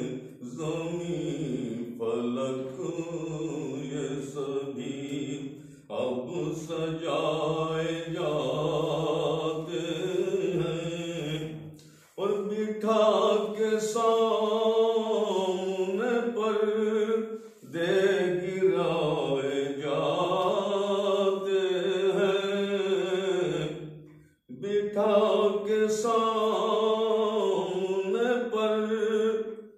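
A man's unaccompanied voice chanting a naat, an Urdu devotional poem in praise of the Prophet, in long drawn-out melodic phrases. Four short breaks for breath split the phrases.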